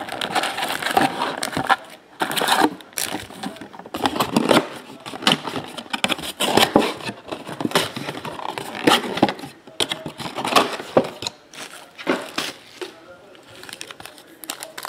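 Foil-wrapped trading card packs handled out of a cardboard hobby box and stacked on a table: irregular crinkling and rustling of the foil wrappers with light taps and scrapes.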